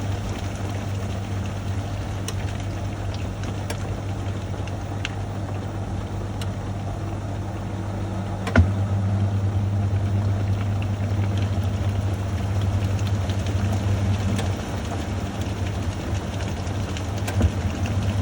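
National NA9450PN top-loading pulsator washing machine in its spin, the motor and drum running with a steady low hum. A single sharp click about eight and a half seconds in, after which it runs a little louder.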